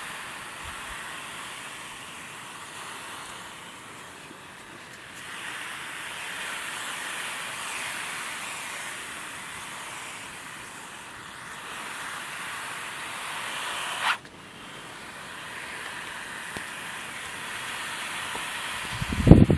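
Steady hissing noise that swells and fades over several seconds, cutting off abruptly about fourteen seconds in and then building again.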